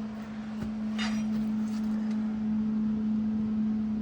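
Steady low machine hum, with a short scraping clink about a second in.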